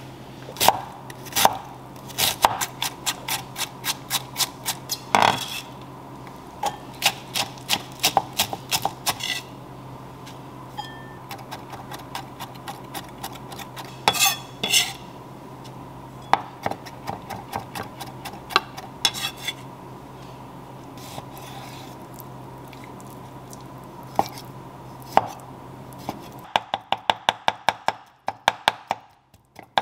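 Chef's knife chopping on an end-grain wooden cutting board: runs of quick, sharp knocks through capers, then a faster, denser run near the end as raw salmon is minced with the knife. A ceramic bowl knocks on the board at the start.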